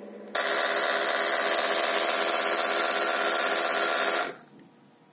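Two small vibration motors fixed to a small enamelled saucepan pressed against the wall, running together as a 'vibro-drill': a loud, harsh buzz that sounds like an electric drill. It starts abruptly and cuts off suddenly about four seconds in.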